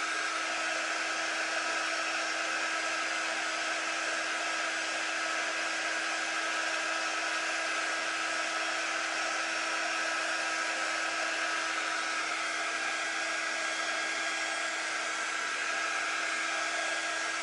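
Handheld craft heat tool blowing hot air steadily: an even fan whir with a constant hum, drying freshly applied paint on a wooden board.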